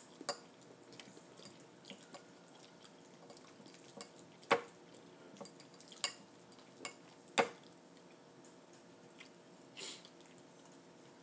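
Eating sounds close to the microphone: a handful of sharp clicks and taps spread over several seconds, the loudest two about three seconds apart.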